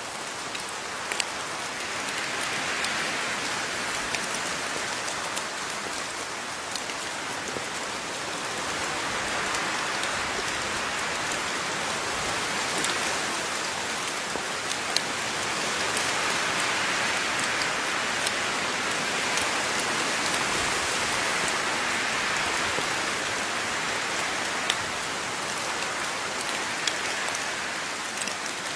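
Steady rain falling, a dense hiss that swells and eases gently, with scattered sharper drops striking close by.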